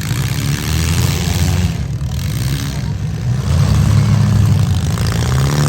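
Demolition derby cars' engines running, a loud, steady low rumble.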